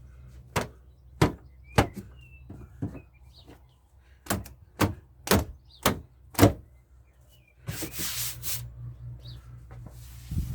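Sharp taps on the car's steel rear wheel arch panel as the dent is panel-beaten: three knocks about half a second apart, a pause, then five more at a steady pace. About two thirds of the way through, a rough, hissy scraping noise lasts about a second.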